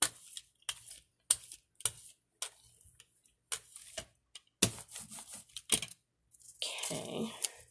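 Quick, repeated strokes of a paint-laden brush across a Gelli gel printing plate, about two a second, each a short sharp swish. A longer rustle follows near the end.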